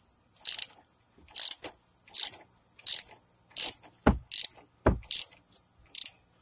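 Ratchet wrench clicking in short strokes, about one every 0.8 s, as it backs off the top nut of a sway bar link now that the stud is held from spinning. Two low knocks come about two-thirds of the way through.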